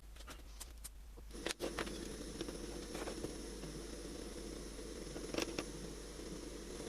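A few light clicks, then a steady mechanical hum starts about a second and a half in and keeps running, with occasional knocks and taps over it.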